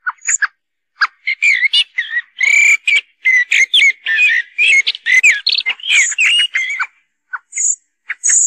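Recorded common blackbird calls played as a hunting lure. A few sharp single notes lead into about six seconds of dense, rapid chattering calls, and then the notes thin out again to scattered sharp calls.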